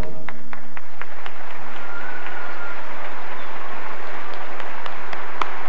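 Audience applauding just as the orchestra's music stops, with scattered individual claps standing out.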